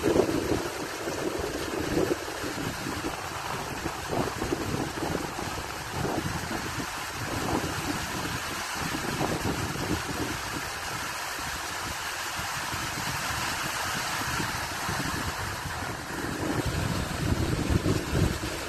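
Fast stream water rushing and churning over a small drop, a steady whitewater rush with uneven surges.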